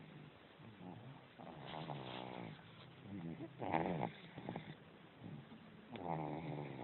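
Snoring: three rasping, pitched snores about two seconds apart, with quieter breathing between them.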